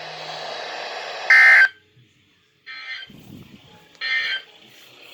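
Weather radio hissing with static, then three short bursts of EAS/SAME digital data tones about a second and a half apart, the first much the loudest. This is the end-of-message code that closes an Emergency Alert System broadcast, here an Amber Alert.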